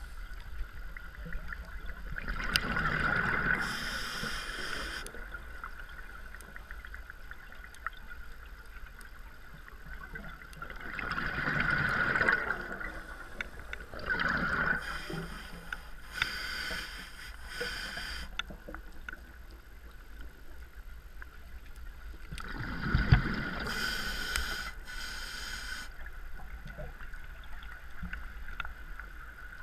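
Scuba diver breathing through a regulator underwater: three slow breaths roughly ten seconds apart, each a bubbling surge followed by a hiss, over a steady low rumble.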